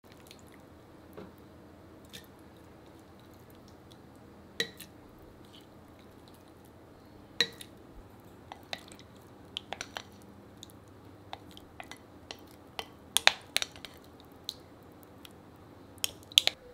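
Marinated cherry tomatoes being put into a glass jar: soft wet squishes and drips as they go in, with scattered sharp taps and clinks against the glass, most frequent in the second half.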